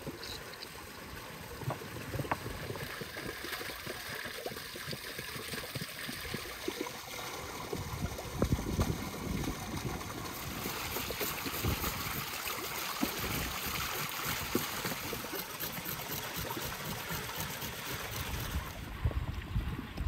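Spring water pouring steadily from a spout into a stone basin, getting louder and splashier about halfway through as it runs over the fish being cleaned under it, with a few soft knocks of handling.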